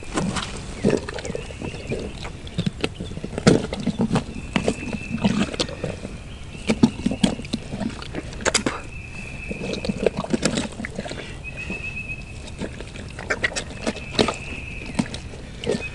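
Footsteps crunching and rustling through leaf litter and brush as hog carcasses are dragged through the woods, in irregular crunches and knocks. A thin, high, steady tone comes and goes several times over it.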